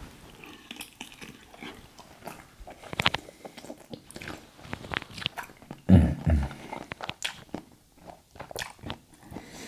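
A person chewing and smacking on seafood boil food, with wet mouth clicks and smacks throughout. Two dull low thumps about six seconds in.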